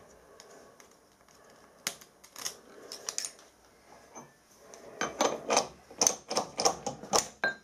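Light metallic clicks and clinks of a steel workpiece and small hand tools being handled on a machine vise, a few scattered at first, then a quick run of clinks from about five seconds in.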